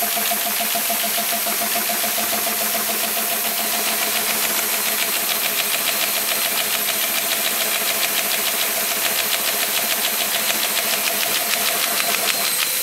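CAS38 paper folding machine with SKM36 delivery running steadily: a constant machine hum with a rapid, even ticking of sheets feeding through.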